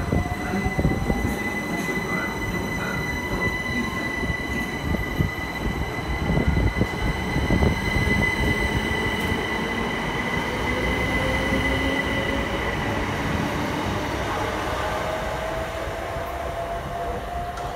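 Southern Class 377 Electrostar electric multiple unit pulling away, its traction motors whining in slowly rising tones as it accelerates, over low wheel-and-rail rumble and a steady high tone that fades about three-quarters of the way through.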